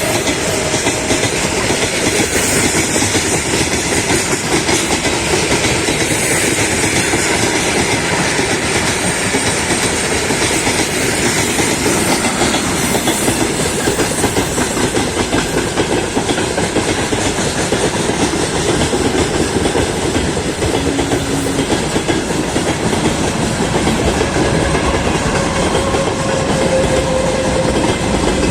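Freight train rolling past: a loud, steady rumble of wagon wheels with clickety-clack over the rail joints.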